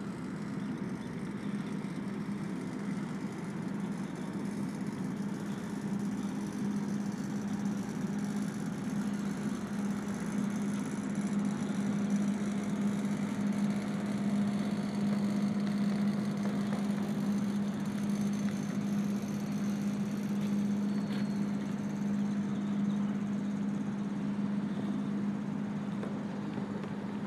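Steady machine drone, like an engine running at idle, holding one pitch throughout and growing slightly louder through the middle.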